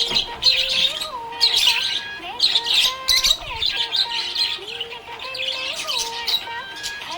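Budgies chirping and warbling in rapid, high-pitched runs of chirps that keep going without a break.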